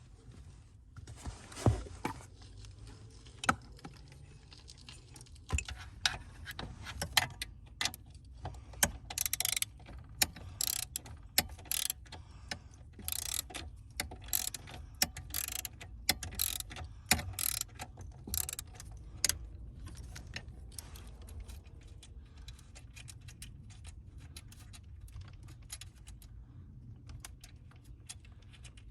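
Metal tools and parts clicking and clinking during hands-on work on a car's steering wheel assembly, with a few short runs of rapid clicking near the middle, over a low steady hum.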